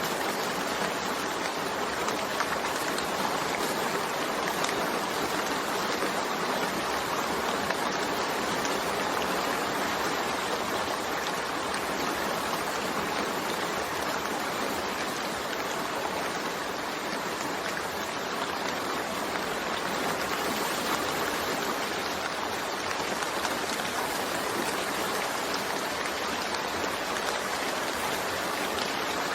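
Steady rain falling, a dense even patter of drops with no thunder.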